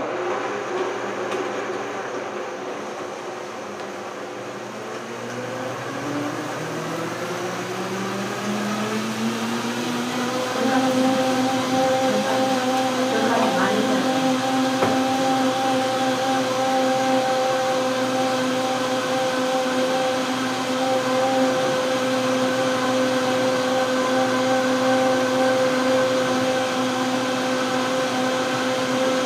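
Vitamix blender switched on, its motor pitch climbing over several seconds as the speed is turned up, then running steadily at high speed as it purées fruit and soy milk into a smoothie.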